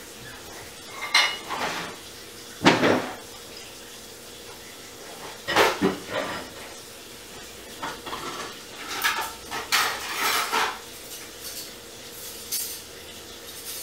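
Intermittent household clatter: separate clinks and knocks of hard objects, the sharpest a single knock a little under three seconds in and a busier run of clinks about nine to ten seconds in.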